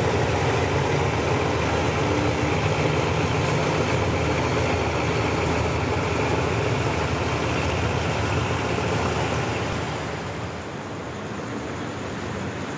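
Diesel-electric locomotive of the State Railway of Thailand running light along the track, its engine giving a steady low drone; the sound gets quieter about ten seconds in.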